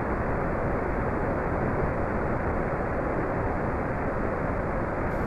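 Falcon 1 first stage's Merlin engine running during ascent, heard through the rocket's onboard camera microphone as a steady, even rumble with little high end.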